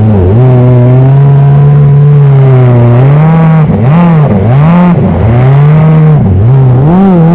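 Kommander GP1 stand-up jet ski's engine running hard and loud. Its note holds steady for the first few seconds, then repeatedly dips and climbs back up, about once or twice a second, as the revs rise and fall.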